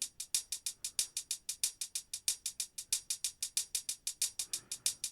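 Sampled hi-hat drum loop playing back: fast, even, crisp ticks, about eight a second.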